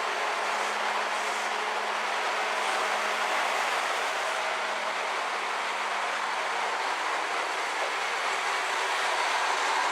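Train at a station making a steady running noise, with a faint steady hum that fades out about seven seconds in.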